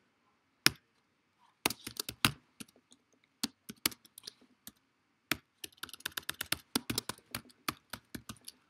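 Typing on a computer keyboard: irregular keystroke clicks in short runs with brief pauses, thickest a little past the middle.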